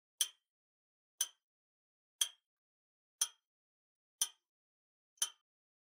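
Countdown clock ticks as a quiz timer sound effect: six short, sharp ticks, evenly one a second, with silence between.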